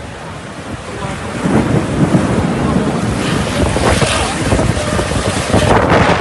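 Strong storm wind gusting and buffeting the microphone, growing louder about a second and a half in.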